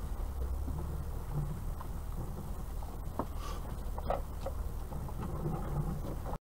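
Vauxhall Astra Mk3 heard from inside the cabin while driving along a rutted dirt track: a steady low engine and road rumble with scattered knocks and clicks from the rough ground. It cuts off suddenly near the end.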